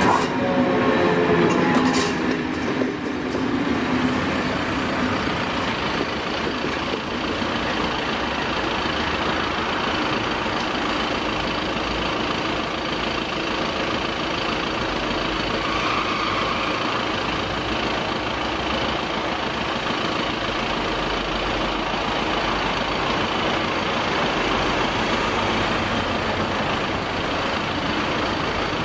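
A BLS NINA electric train leaving the level crossing, its whine falling in pitch and fading over the first couple of seconds. After that comes a steady, even rumble and hiss of road vehicles idling at the lowered barriers.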